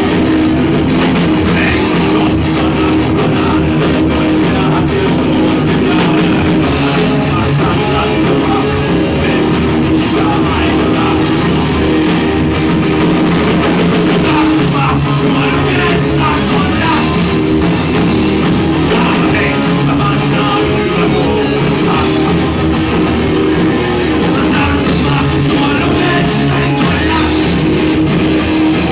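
Live rock band playing loudly: electric guitar, bass and drum kit, with a singer.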